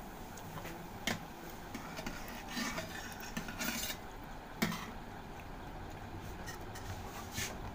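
Metal spatula scraping and clicking against a tawa (flat griddle) and a steel plate as a cooked besan chilla is lifted off and set down: a sharp click about a second in and another near five seconds, with short scrapes in between.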